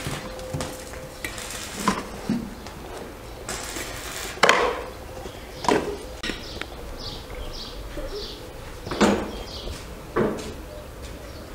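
Metal teaspoon clinking and knocking against a plastic jar and a stainless steel teapot as dried tea leaves are spooned in: several sharp clinks spread a second or more apart.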